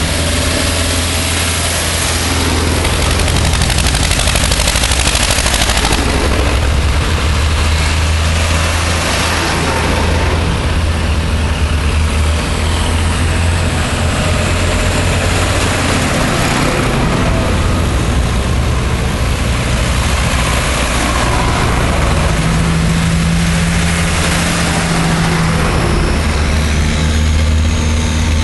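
A procession of farm tractors, among them a large green Fendt and a red tractor, driving past one after another, their diesel engines running steadily and loudly.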